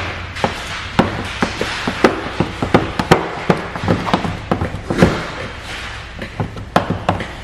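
A rapid, irregular run of sharp taps and clicks, several a second, over a low steady hum.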